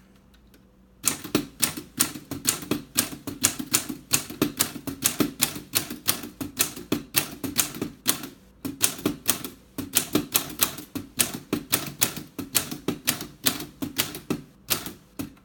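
L C Smith & Corona Standard manual typewriter being typed on: a fast run of key strikes, about four or five a second, starting about a second in, with a couple of brief pauses. The machine has a solid, short-throw typing action.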